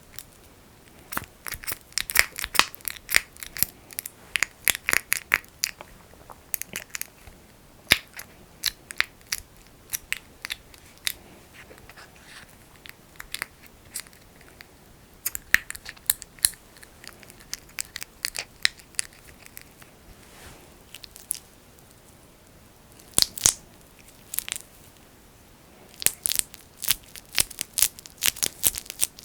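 Fingers squishing thick petroleum jelly (Vaseline) close to the microphone, making sticky crackling and popping in flurries with short pauses between them.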